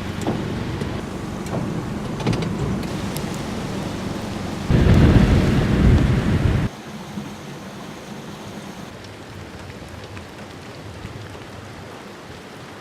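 Heavy typhoon rain falling as a steady hiss. About five seconds in a much louder, deeper rumbling stretch lasts about two seconds and stops abruptly, leaving softer rain.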